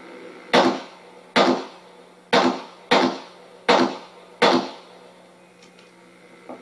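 Six pistol shots from a Glock 21 in .45 ACP, fired at an uneven pace about half a second to a second apart during a practical shooting stage. The shots are heard as played back through a television and re-recorded, so they sound thin and boxy.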